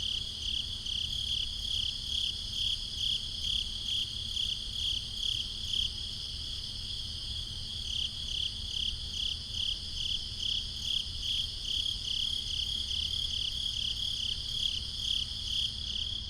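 Crickets chirping in a steady, even rhythm of about three high chirps a second, with a low rumble underneath.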